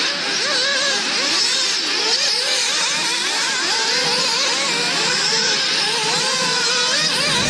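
Several nitro-powered RC buggies' small glow-fuel engines revving as they race, many overlapping whines rising and falling in pitch as the cars throttle up and back off.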